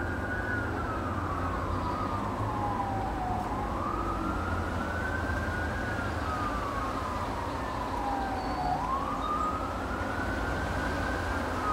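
Emergency vehicle siren in a slow wail, its pitch rising then sliding down again about every five seconds, over a steady low rumble.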